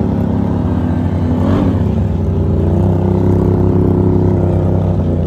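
ATV engine running steadily at trail pace, with a brief rise in revs about a second and a half in.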